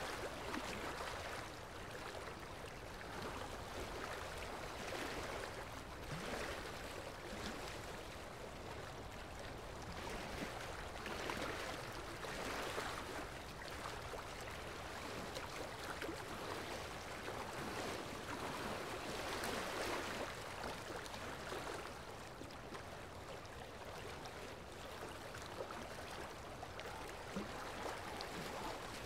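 Steady rushing sound of flowing water, swelling and easing every few seconds.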